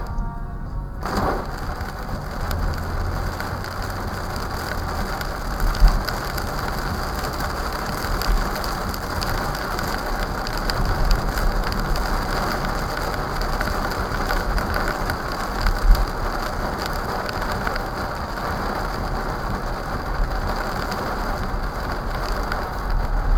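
Heavy rain drumming steadily on a car's windshield and roof, heard from inside the car through a dashcam's microphone, setting in about a second in. Two brief, louder low thumps stand out in the middle.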